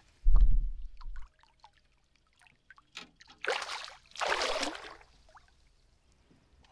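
Water splashing beside a boat as a released northern pike thrashes at the surface and dives: a low thump at the start, small drips and ticks, then two short splashes about three and a half and four and a half seconds in.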